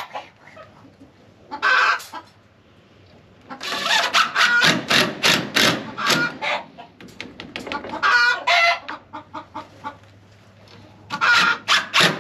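Chickens cackling from the coop: short, loud calls repeated in quick runs, a brief one about two seconds in, a long run from about three and a half seconds to nearly nine, and another near the end.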